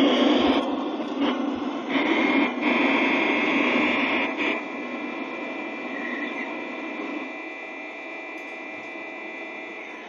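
LGB G-scale model train running past: the locomotive and coaches rolling along the track with a steady rumble and a steady high whine, fading toward the end.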